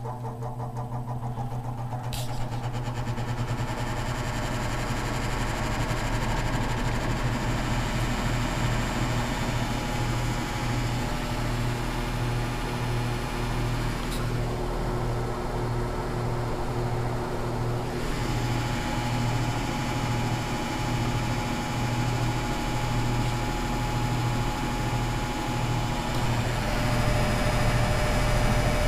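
Electric motor of a vintage Signal box fan gathering speed over the first few seconds, then running steadily with a strong electrical hum that throbs in a regular beat. A sharp click about two seconds in.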